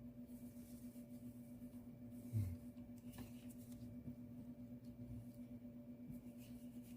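Near-silent room tone: a faint steady hum, with a soft low thud about two and a half seconds in and a couple of faint clicks.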